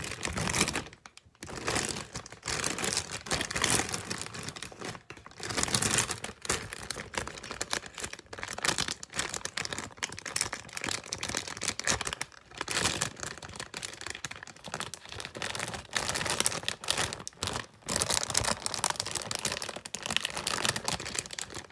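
Close handling noise: irregular crinkling and rustling as a jumbo squishy toy is squeezed and rubbed against the phone, in spells with brief pauses.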